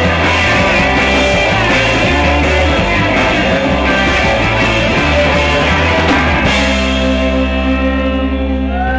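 Live rock band playing with electric guitar. About six and a half seconds in, the full band stops and a single chord is left ringing.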